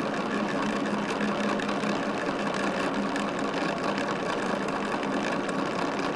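Jet airliner engines running with a steady, even drone and a constant low hum.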